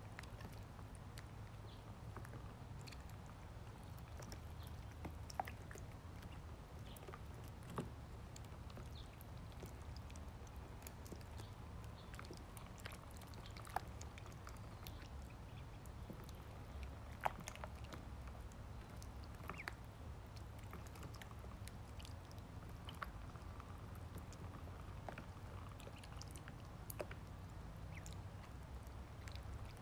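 Ducklings feeding: scattered small clicks and taps of bills pecking at feed, the plastic waterer and the wood-shavings bedding, with a few sharper clicks. A steady low hum sits underneath.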